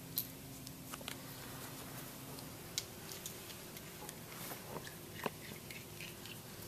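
Scattered small clicks and taps of pump check valve parts (poppet, O-ring, seat) being handled and fitted together, with three sharper clicks, about a second in and twice more after that.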